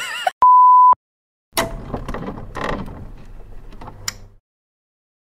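A steady beep lasting about half a second, then about three seconds of mechanical whirring and clattering with scattered clicks over a low hum, which cuts off suddenly.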